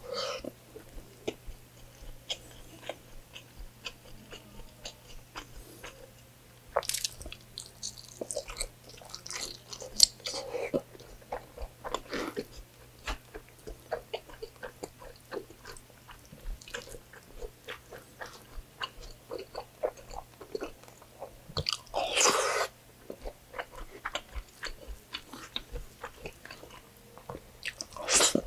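Close-miked eating sounds of a person chewing pork belly adobo and rice eaten by hand: a steady run of wet chewing and lip-smacking clicks, with a few louder, longer bites or slurps scattered through, the loudest about two-thirds of the way in.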